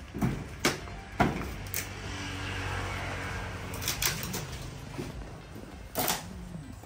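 Irregular wooden knocks and clatter with some scraping as old boards are pried and pulled off a timber wall frame. There are several sharp knocks in the first two seconds and a couple more later on.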